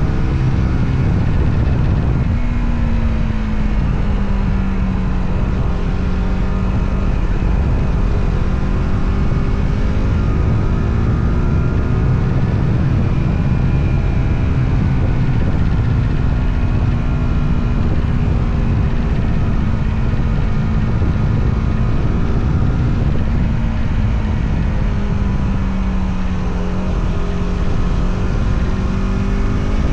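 Motorcycle engine running under way, its note dropping a couple of seconds in, holding steady, then dipping again near the end and rising back, over a heavy low rumble.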